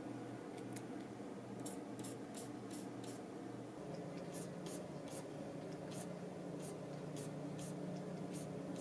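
Stylus nib tapping and stroking on the screen of a pen-display drawing tablet in short, irregular strokes, over a steady low hum.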